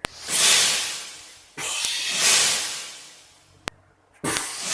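Three long hissing whooshes of air, each starting sharply and fading away over a second or so.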